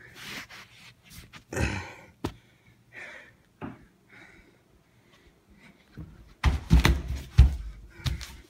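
Handling noise from a handheld phone as someone moves about on a carpeted floor: scattered scuffs, rustles and clicks, then a run of heavy thumps and knocks about six and a half seconds in, the loudest part.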